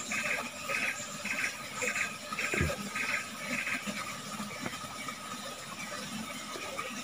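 Forest insects calling: a rhythmic pulsed buzz repeating about twice a second that fades out about four seconds in, over a steady faint high hum. One dull thump about two and a half seconds in.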